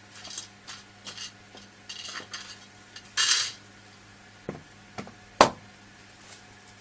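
Small metal screws clinking and rattling as they are picked up and handled for mounting a hard drive in a computer case. There is a short scraping rustle about three seconds in, and the loudest sharp click comes about five and a half seconds in.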